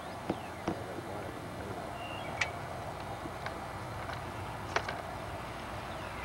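Steady background hiss with five or so short, sharp clicks and taps spread through it, and a brief high tone about two seconds in.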